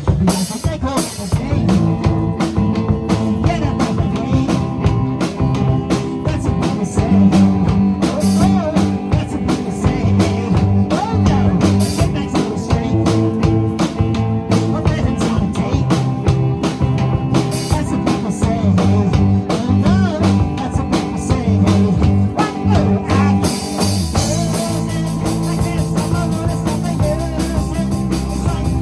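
A rock band playing a song live, with a drum kit keeping a steady beat under held chords. The music turns brighter and fuller near the end.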